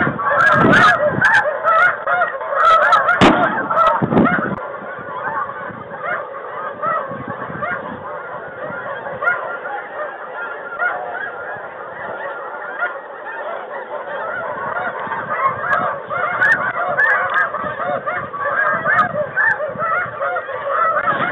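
A large flock of snow geese calling: a dense, continuous din of overlapping honking calls that thins somewhat in the middle and builds again near the end. A few sharp knocks sound in the first four seconds.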